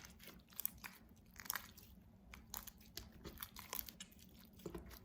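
Homemade slime of white school glue and borax being kneaded by hand on a tabletop: faint, irregular clicks and squishes, several a second.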